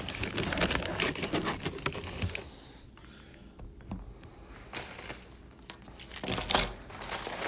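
Handling noise as a phone is moved about and settles in a lap: scattered rustling and small clicks, a quieter stretch in the middle, and a louder rustle about six seconds in.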